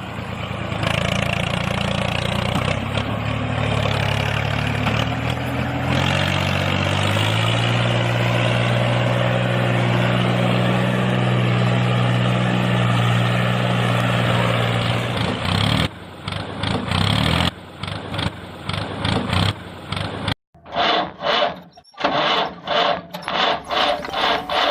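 Tractor engine running steadily, its pitch stepping up and down. In the last several seconds the sound turns choppy and stop-start.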